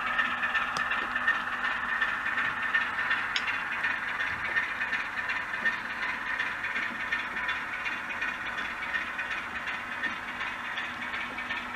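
DCC sound-fitted model diesel locomotives on an OO-gauge layout: recorded diesel engine sound from small onboard speakers mixed with the clatter of model wheels running over the track, gradually getting quieter.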